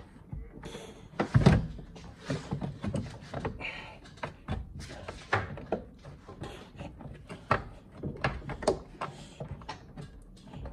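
Factory plastic air intake box being wrenched, twisted and wiggled loose in the engine bay: irregular plastic knocks, creaks and clatters, with one heavy thump about one and a half seconds in.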